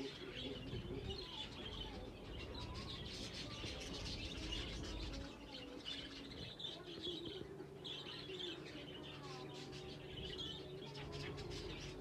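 A flock of exhibition budgerigars chattering and chirping continuously, a busy warbling twitter with many small clicks as birds crack seed at the feeding tray.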